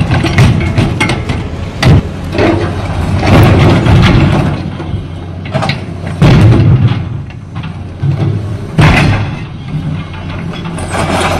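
Daewoo hydraulic excavator's engine running steadily while its grapple claw crushes and tears the steel of a truck cab: grinding metal crunching punctuated by about five heavy bangs.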